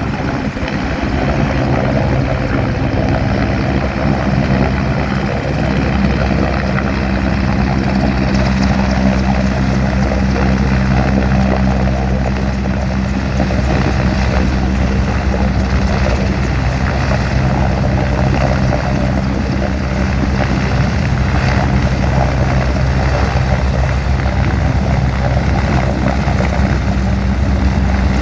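EH-101 Merlin three-engine military helicopter hovering low, its rotor and turbines making a steady, loud thrum with a fast low beat.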